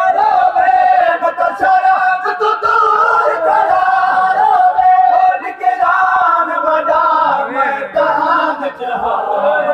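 A group of men chanting a noha, a Shia mourning lament, together in unison with a lead reciter, unaccompanied, in long held lines. The chant loosens and drops near the end.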